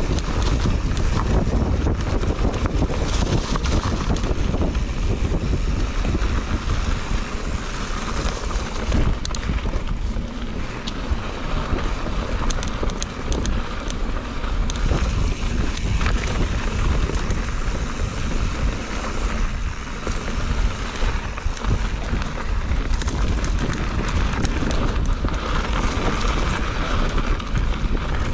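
Mountain bike rolling fast down a dirt trail: wind rushing over the microphone and tyre noise on dirt and dry leaves, with scattered rattles and clicks from the bike over bumps.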